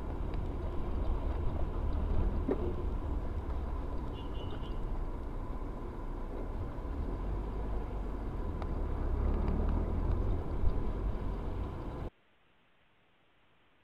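Car running along a road, heard from inside the cabin by a dashcam: a steady low rumble of engine and tyre noise. It cuts off abruptly about twelve seconds in, leaving near silence.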